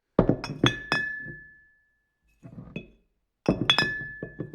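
Light clinks with a glassy, bell-like ring: a quick run of strikes whose ringing tone fades over about a second, a few softer taps midway, then another run of strikes.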